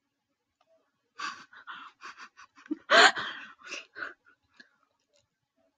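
A person's short breathy puffs and gasps through the mouth, coming quickly one after another, with one louder voiced rise in the middle.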